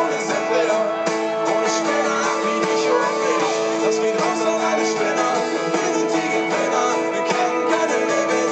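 Guitar-led rock band playing live, with an acoustic guitar strummed over electric guitars and drums, heard loud and steady from within the audience.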